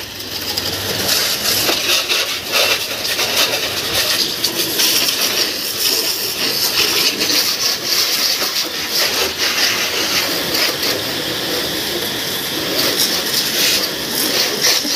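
High-pressure washer jet spraying water onto a pickup truck's bodywork, a steady hiss with small changes in pitch as the spray moves over the surfaces.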